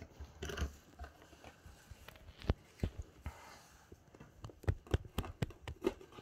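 A cardboard advent calendar door being opened and the packaging inside handled: irregular sharp taps and clicks of card, with short bursts of crinkling and rustling.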